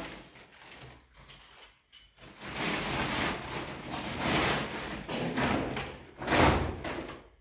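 Rummaging in a woven plastic sack: rustling and handling noises for several seconds, with a louder bump about six seconds in.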